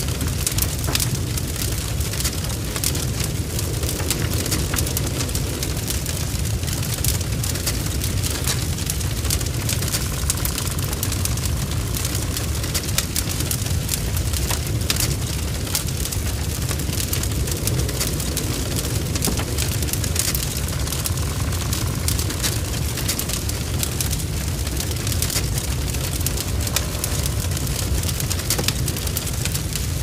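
Burning wood fire: a steady low rumble of the blaze with frequent sharp crackles and spitting from the burning wood.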